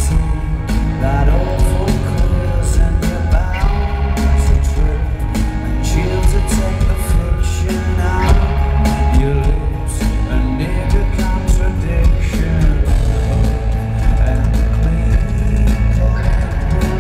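Rock band playing live through an arena PA: electric guitars, bass and drums, very heavy in the low end, recorded from the audience.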